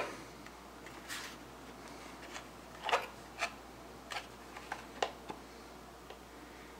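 Scattered light clicks and taps from small graphics-card parts being handled, the loudest a couple of clicks about three seconds in.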